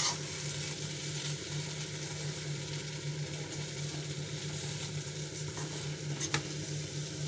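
Chopped okra coated in gram flour frying in oil in a pan, sizzling steadily while it is stirred, with a sharp utensil tap at the start and another about six seconds in.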